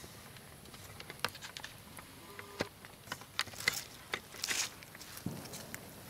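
Faint scattered clicks and light rustling, with a short hiss about four and a half seconds in.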